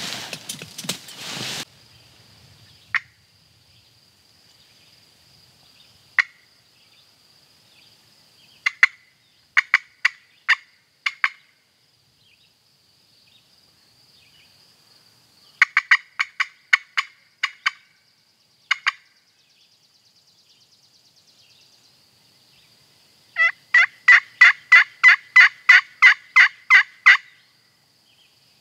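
Turkey calling by a hunter: loud, sharp single cutts and short clusters of them, then a run of about a dozen yelps at roughly three a second near the end. The calls are meant to fire up a gobbler that has been answering. There is a brief rustle at the very start.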